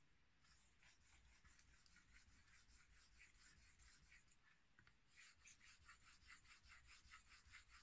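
Faint, quick scratching strokes of a straight razor's edge being rubbed back and forth in short strokes on a fine 8000-grit Kitayama waterstone, several strokes a second, picking up in the second half.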